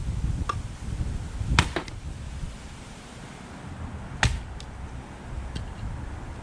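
Wind buffeting the microphone as a steady low rumble, with a few sharp cracks; the loudest come about a second and a half in and just past four seconds in.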